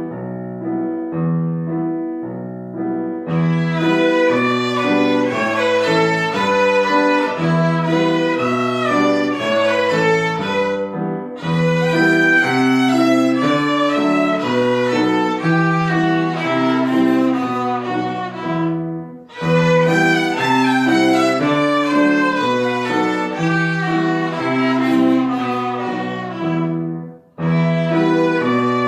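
A trio of violins playing a slow, lyrical piece with piano accompaniment. The piano plays alone for about the first three seconds, then the violins join. The music moves in phrases separated by short breaths.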